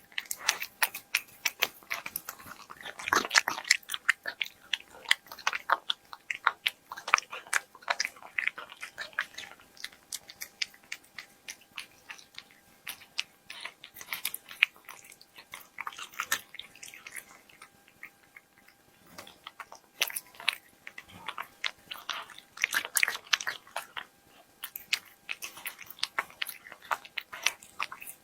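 A cat chewing and biting its food close to the microphone: a dense run of quick, irregular crunchy clicks, easing off briefly a little past the middle before picking up again.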